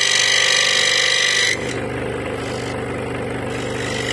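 Scroll saw running and cutting into plywood, with a steady motor hum and a high whine from the blade. About a second and a half in the whine drops away and the saw runs more quietly, then the whine comes back near the end.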